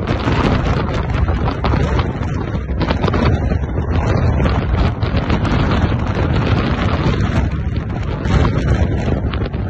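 Gale-force wind, reckoned at 60-plus mph, buffeting the microphone and a backpacking tent. The flysheet flaps and snaps in rapid, continuous cracks.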